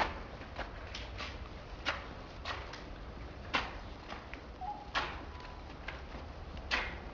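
Sharp, irregularly spaced taps and clicks, about a dozen, over a low steady hum, with a brief faint tone about two-thirds of the way in.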